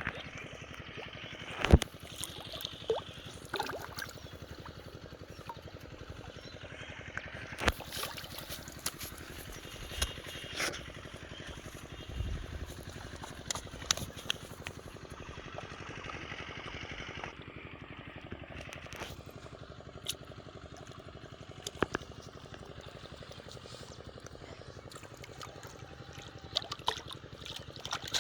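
Water trickling and splashing, broken every few seconds by sharp knocks and splashes, as from handling gear or paddling in a small boat on a river.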